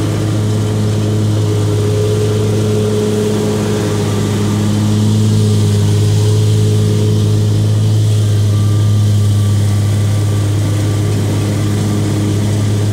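Zero-turn riding mower engine running steadily while mowing: an even, low drone that swells slightly through the middle.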